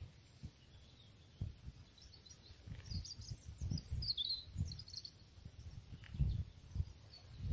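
Wind buffeting the microphone in uneven low gusts, with a few short high bird chirps in the middle.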